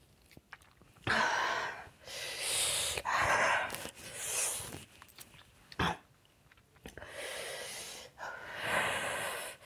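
A woman breathing hard in about five loud, hissing breaths, one every second or two with short quiet gaps between them: her reaction to the burning heat of the extremely spicy Jolo chip she has eaten.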